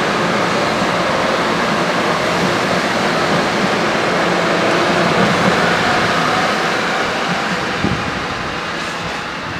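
Commuter train rolling past along the platform: a steady loud rush of wheels on rail that fades as the last car clears, with a single thump near the end.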